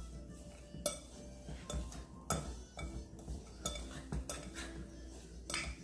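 A utensil stirring salmon croquette mixture in a glass mixing bowl, clinking and scraping against the glass with irregular sharp knocks about once a second.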